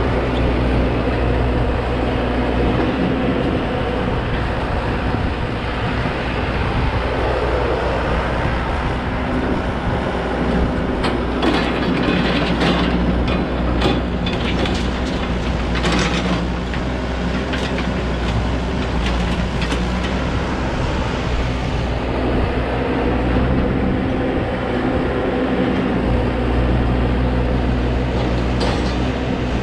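Excavator's diesel engine running steadily. Near the middle comes a cluster of sharp knocks and cracks, with a few more near the end.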